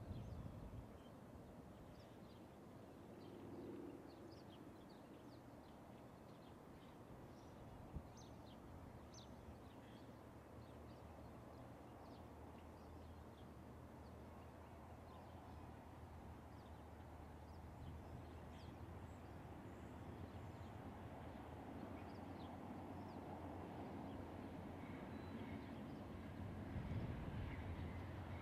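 Distant Norfolk Southern diesel locomotives approaching, a faint low rumble that slowly grows louder, with small birds chirping. A single sharp click about eight seconds in.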